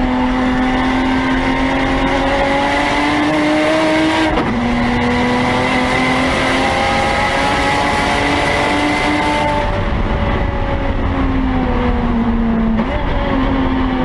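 Turbocharged BMW E30 race car's engine heard from inside the cabin under full throttle, its pitch climbing, dropping sharply at an upshift about four seconds in, then climbing again. Near ten seconds the driver lifts off, the engine noise thins out and the pitch falls, with a brief step up near the end.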